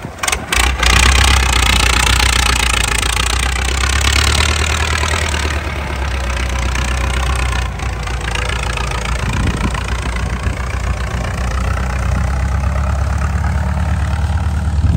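Massey Ferguson 185 tractor's four-cylinder diesel engine. About a second in it jumps from a lower level to a loud, steady run with a slightly wavering pitch.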